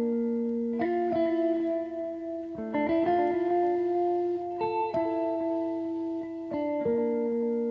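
Background music: held chords of pitched notes, changing about every one and a half to two seconds.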